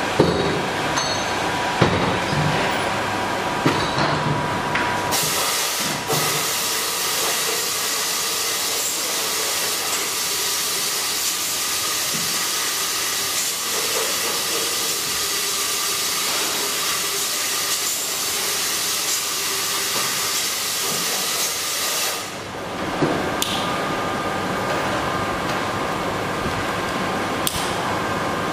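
A loud, steady hiss that starts abruptly about five seconds in and cuts off abruptly about twenty-two seconds in, with a few sharp knocks and clinks around it.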